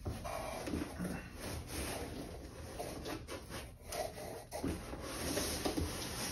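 Cardboard rubbing and scraping as the flaps of a tall guitar shipping box are pried open, with a few light knocks. Near the end the inner carton starts to slide against the outer box.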